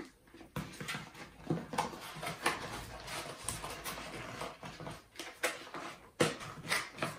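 Handling noise from a small cardboard box being closed and set down into a foam-lined hard rifle case: scattered taps, scrapes and cardboard rustles, with a sharper knock near the end.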